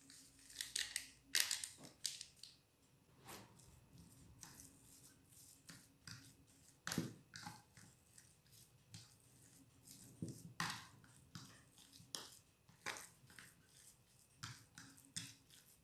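A spoon mashing and stirring soft curd cheese in a plastic container, with irregular scrapes and taps of the spoon against the plastic.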